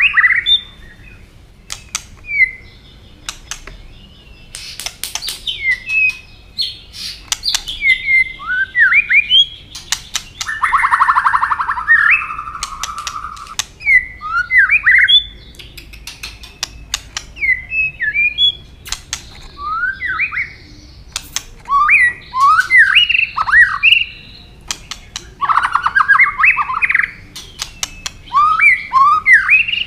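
White-rumped shama singing: whistled notes gliding up and down, interspersed with many sharp 'tak' clicks and, twice, a longer rasping buzz.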